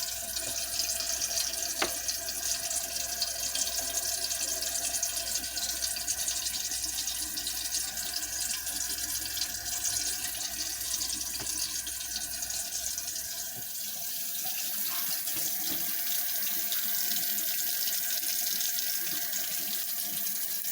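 Faucet water running steadily into a sink.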